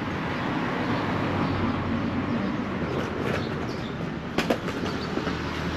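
Steady rumble of a vehicle engine with road noise, with a couple of sharp clicks about four and a half seconds in.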